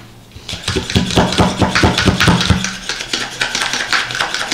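Hand-pumped plunger food chopper on a glass jar chopping peeled garlic cloves: the plunger is pushed down again and again in a rapid run of clacks as the blade strikes the cloves and the jar. It starts about half a second in.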